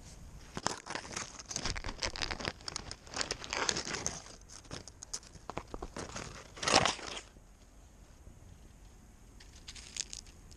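Close, irregular crinkling and crackling rustles picked up by a GoPro worn by a cat as it moves, densest over the first seven seconds with one loud burst near the end of that stretch, then a few faint clicks.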